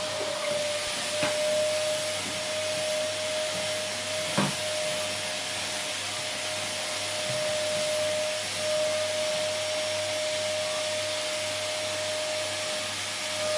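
Vacuum cleaner running steadily: an even rushing hiss of airflow with a steady motor whine. There are two short knocks, one about a second in and a slightly louder one about four seconds in.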